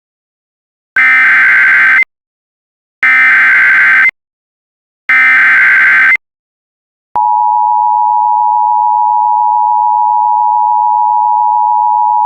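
Emergency Alert System tones: three one-second bursts of the SAME digital header, a buzzy data screech, each separated by about a second of silence, encoding an Emergency Action Notification. About seven seconds in, the steady two-tone EAS attention signal begins and holds.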